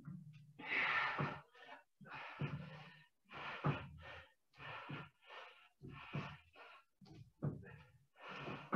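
A man's heavy breathing under hard exercise, breaths coming in quick regular pairs about once a second, some with a little voice in them.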